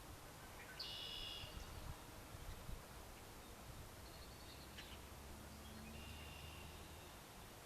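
Faint outdoor ambience with three short, high-pitched bird calls, about one, four and six seconds in, over a low steady hum.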